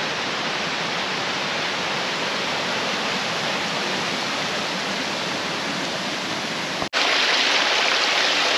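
Rushing water, a steady even rush. About seven seconds in it breaks off for an instant and comes back louder and brighter.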